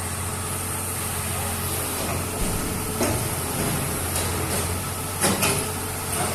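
Borewell drilling rig running with a steady low drone, with sharp metallic clanks about three seconds in and twice more a little past five seconds.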